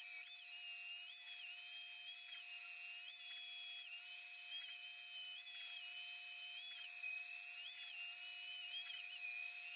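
Router spindle whining as a large surfacing bit flattens a board face in place of a jointer. The pitch steps up and back down every second or two as the bit goes in and out of the cut.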